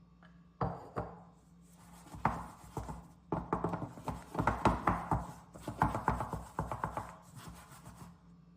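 Kitchen utensil scraping and knocking against a bowl, an irregular run of clicks and scrapes as the ingredients are worked by hand.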